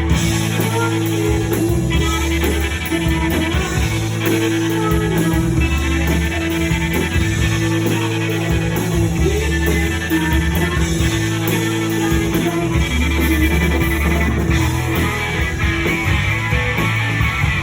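Live indie rock band playing: electric guitars over bass and drums, with a held guitar note ringing through much of the passage.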